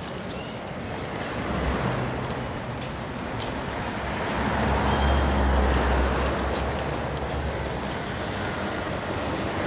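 City street traffic ambience: a steady low rumble of motor vehicles under a dense wash of noise, swelling a little around the middle.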